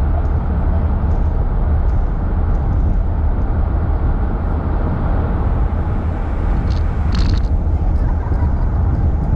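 Car driving at highway speed, heard inside the cabin: a steady low rumble of road, tyre and engine noise, with a brief high hiss about seven seconds in.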